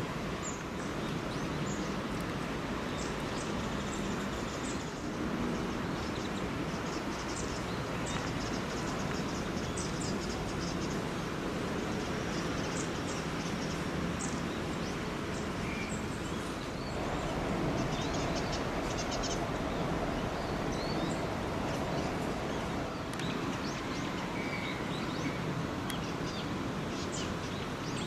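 Long-tailed tits calling: many short, thin, high-pitched calls scattered throughout, over a steady background hiss and rumble.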